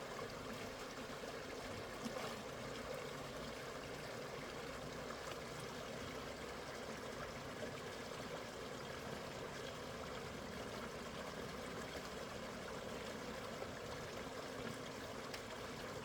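Water running steadily, like a small stream or outflow, with a few faint clicks.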